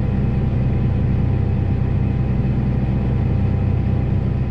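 John Deere 8245R tractor's six-cylinder diesel running steadily under load, heard from inside the cab, with the grain cart's PTO-driven unloading auger turning.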